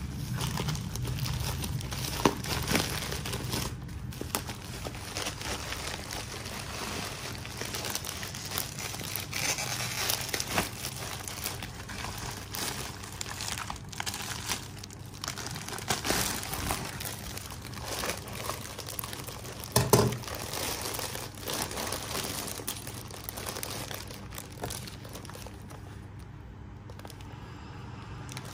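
Plastic mailer and packaging crinkling and rustling as a parcel is cut open with scissors and unpacked, with a few sharp snaps; the loudest comes about two-thirds of the way through.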